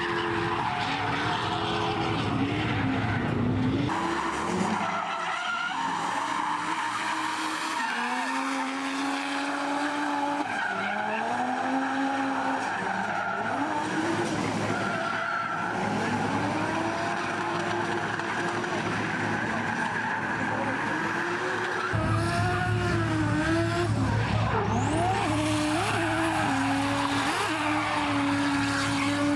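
Drift car engines revving up and down as cars slide around the track, with tyres skidding. About three quarters of the way through, the low engine rumble gets louder.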